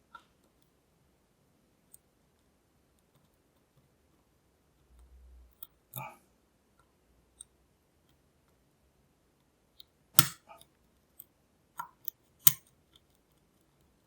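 Lock pick tapping and clicking on the pins inside a Lockwood V7 padlock: scattered, irregular small clicks, with two sharper, louder clicks near the end.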